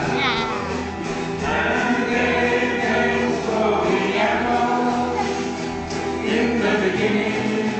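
A song played live by a small band with guitars, with a group of voices singing along.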